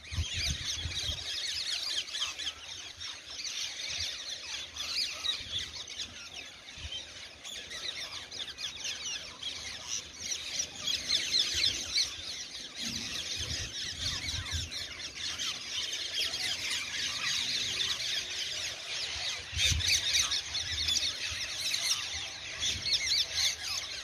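A large flock of rose-ringed parakeets screeching and chattering, many shrill calls overlapping without a break.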